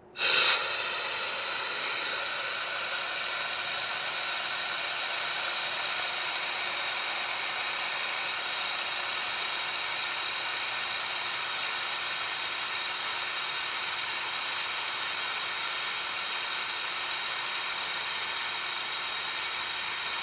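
Compressed air from a shop air compressor line hissing steadily into a plastic bag. It starts abruptly, is slightly louder for the first couple of seconds, then holds even.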